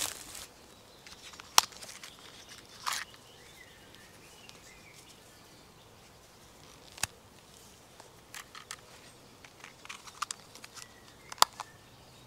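Quiet woodland background with a few sharp clicks and light rustling as a small bundle of paracord is handled in the hands. Faint birdsong comes in now and then.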